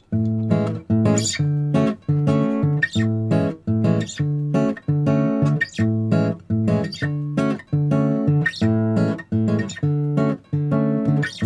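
Background music: strummed acoustic guitar chords in a steady rhythm, about two strums a second.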